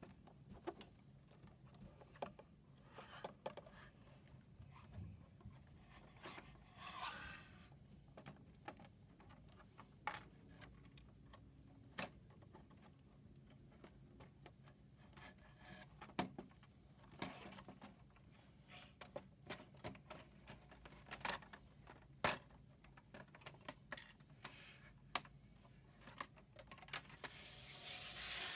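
LEGO bricks being pried and peeled off a baseplate: scattered sharp plastic clicks and snaps, with a longer scraping rustle about seven seconds in and again near the end.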